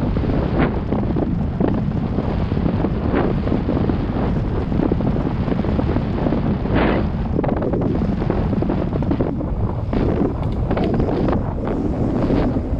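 Wind rushing over the action-camera microphone as a CTM Scroll enduro mountain bike rides down a trail, with tyre noise and the bike rattling over rough ground. Sharper knocks come now and then, the strongest about seven seconds in.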